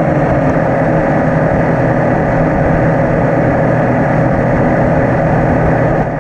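Electric motors and propellers of a radio-controlled aircraft running steadily at high power, a loud, even buzz with a steady hum in it.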